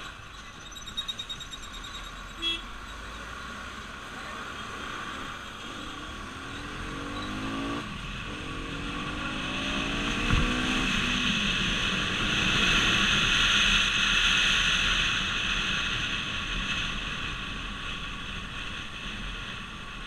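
Motorcycle engine accelerating: its pitch climbs, drops at a gear change about eight seconds in, and climbs again. Then rushing wind over the microphone builds, loudest around the middle, as the bike gathers speed.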